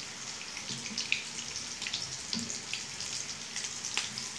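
Potato patties shallow-frying in hot oil in a pan: a steady sizzling hiss full of small crackles and pops. A sharper click about four seconds in.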